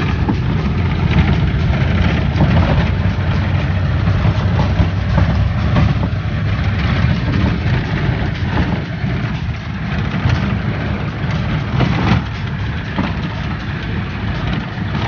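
Vehicle engine running with road and body rattle while driving over a rough dirt track, heard from inside the cabin: a steady low rumble with scattered knocks.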